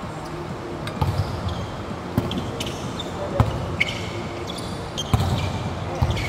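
Volleyball being struck by hands several times in a rally, sharp smacks about a second apart, mixed with short high squeaks of court shoes on the floor, echoing in a large indoor arena.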